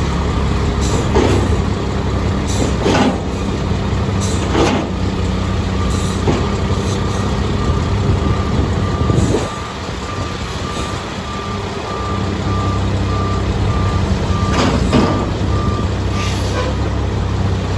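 Diesel engine of a Mack MR front-loader garbage truck running steadily, with several short sharp sounds over it. A backup alarm starts beeping evenly just before the middle and stops near the end as the truck reverses.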